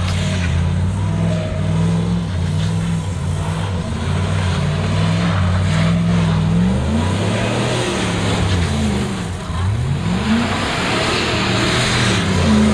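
Dodge pickup's engine held at high revs while the truck spins donuts on snow, its pitch sweeping up and down several times in the second half, with a hiss of tyres spinning on the snow.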